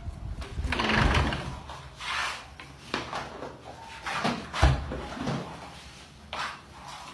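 Kitchen handling noises: several scrapes and rustling bursts with knocks, and one heavy thump about four and a half seconds in, like a drawer or cupboard being worked.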